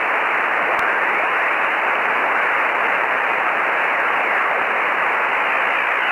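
Shortwave radio receiver hiss and static heard through narrow receiver audio, with faint whistles falling in pitch as when tuning across the band.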